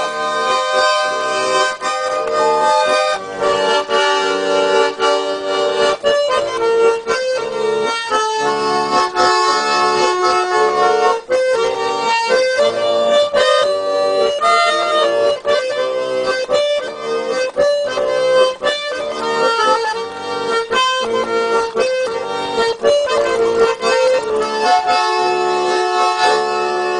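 Accordion playing an instrumental passage: a melody over steady, rhythmic chords.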